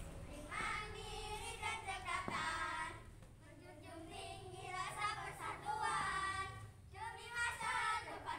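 A group of girls singing a scout yell-song (yel-yel) together in sung phrases with short breaks.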